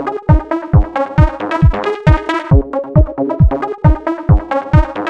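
Background electronic dance music: a steady kick drum at about two beats a second under bright synthesizer chords and melody.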